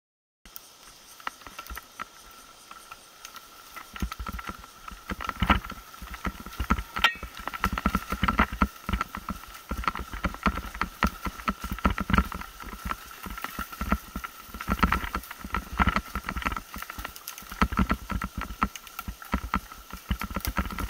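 Mountain bike rattling and clattering down a rough dirt forest trail, with frequent irregular knocks as the wheels hit roots and bumps, picked up close by a mounted action camera. It is quieter for the first few seconds, then busy and loud from about four seconds in, with a faint steady high tone underneath.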